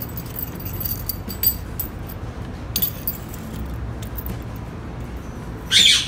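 Indian ringneck parakeet pecking at a hard plastic container, its beak making scattered light clicks and taps over a steady low hum. A short, loud, harsh squawk comes near the end.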